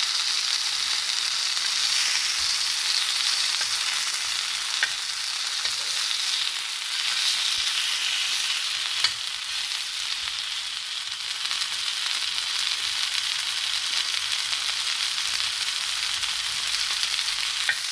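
Chicken longganisa sausages sizzling steadily as they fry in coconut oil in a pan. A few faint clicks sound over the sizzle, with a sharper one about nine seconds in.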